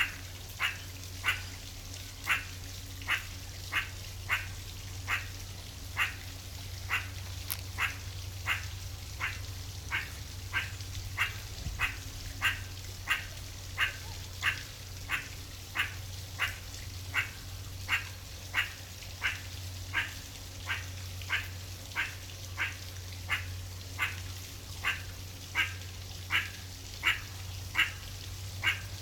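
A meerkat giving the same short call over and over at an even pace, about three calls every two seconds.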